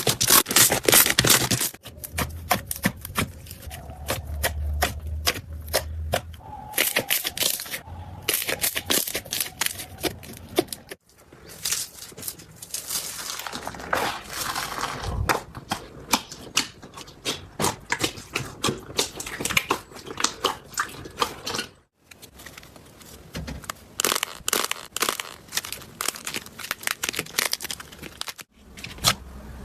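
Slime being squeezed and pressed by hand close to the microphone, giving a dense run of small sticky pops and crackling clicks. The sound breaks off for a moment a few times as one clip gives way to the next.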